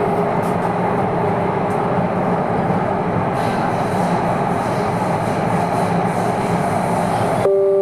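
Delhi Metro train running at speed, heard inside the carriage: a steady, even rumble and hiss from wheels and motors. Near the end, a steady electronic chime of two tones together begins, the signal that comes before an onboard announcement.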